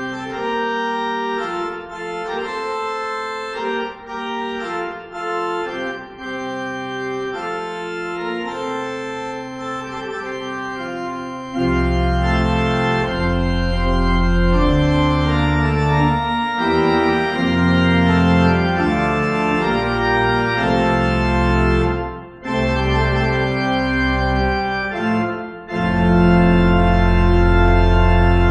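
Organ music in slow, sustained chords. About twelve seconds in, deep bass notes join and it grows louder, with two brief breaks before a long held chord near the end.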